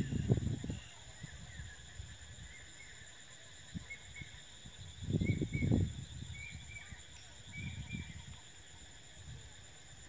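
Wind buffeting the microphone in three low gusts, the loudest at the start and about halfway through. Underneath is a steady high drone of insects and a run of short, repeated chirps.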